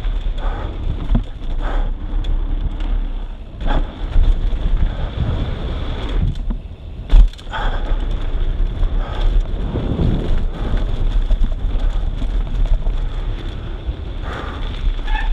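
Wind buffeting the microphone over the rumble of mountain bike tyres on a dirt trail, with rattling and short knocks from the bike over bumps. One sharp, loud knock about seven seconds in.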